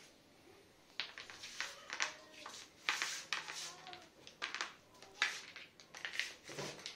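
Plastic toy mouse scraping and clattering on a tile floor as a cat bats it about, a run of irregular short scrapes starting about a second in.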